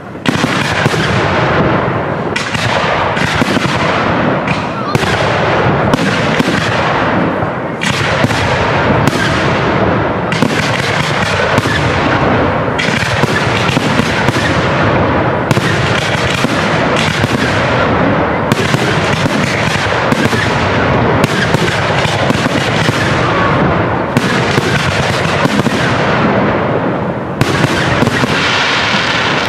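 Aerial firework shells bursting in quick succession: a near-continuous string of bangs, one about every second, with crackling in between.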